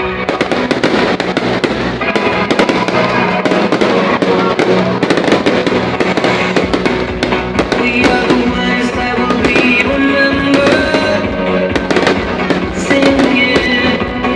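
Fireworks going off in a rapid, dense string of pops and crackles, over music playing loudly from a sound system.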